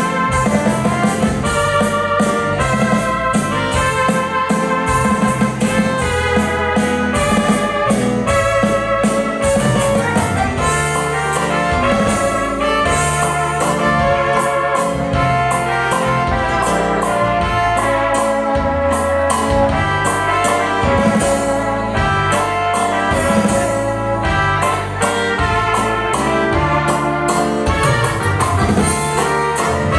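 Music with a steady beat and a brass melody.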